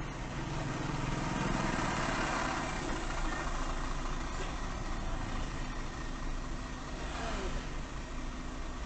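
Car engine idling with passing road traffic, heard from inside a car's cabin in slow traffic.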